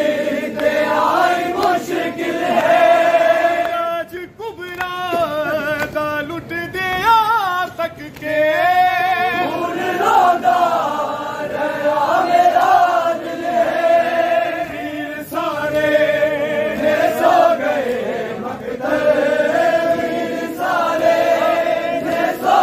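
A noha chanted by a large crowd of male mourners, following a male lead reciter in a sung lament.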